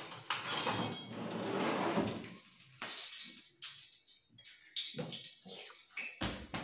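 A rushing, hissing noise for the first two and a half seconds, then light clinks and taps of a steel spoon against a steel bowl and pan as green chillies are scooped into the pan for frying.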